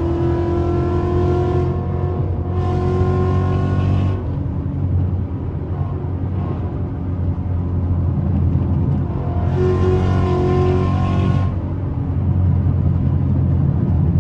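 V8 engine running in a group of cars at highway speed, heard from inside the cabin as a steady drone whose pitch creeps up early on. The exhaust twice turns louder and brighter for a second or two, a few seconds in and again around ten seconds in.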